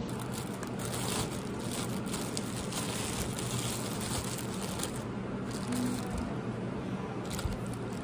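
Thin plastic produce bags crinkling and rustling as they are untied and opened out by hand, busiest in the first half, over a steady low hum.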